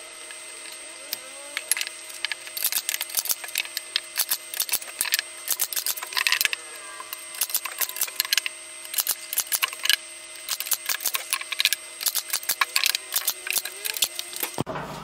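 Cordless drill-driver driving screws through cedar slats, with a dense run of irregular sharp clicks and clatters from wood and metal parts over a faint steady hum.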